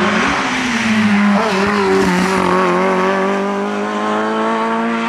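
Small hill-climb race car's engine pulling hard through a bend, holding a mostly steady pitch, with a brief rise and fall just after the start and a step down in pitch about a second and a half in.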